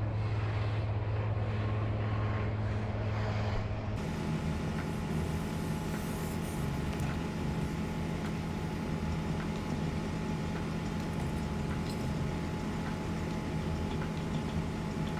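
Truck engine idling with a steady low hum, light ticks over it; the sound changes abruptly about four seconds in.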